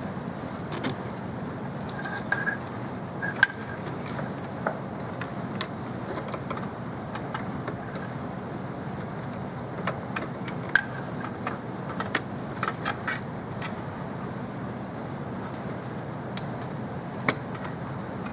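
Scattered light clicks and knocks from small hard parts being handled, over a steady background hum, with a few brief high squeaks.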